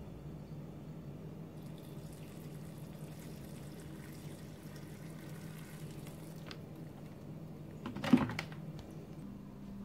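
Hot water pouring from an electric kettle into a bowl of dry noodles, a soft steady splashing for about five seconds. Then a single clunk about eight seconds in as the kettle is set back down.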